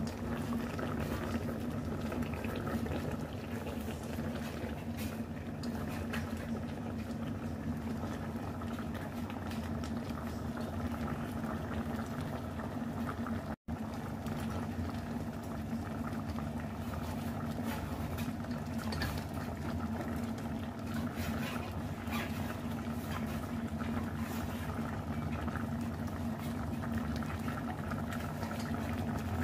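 Broth with bok choy simmering in a stainless steel saucepan: steady bubbling over a steady low hum, with a few light clicks of wooden chopsticks against the pot. The sound drops out for an instant about halfway through.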